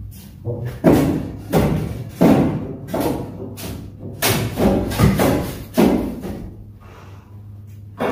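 A series of heavy knocks and thuds, irregular at roughly one every half second to second, as a steel tool strikes metal under a raised pickup truck, each knock ringing briefly; they stop a little before the end, leaving a steady low hum.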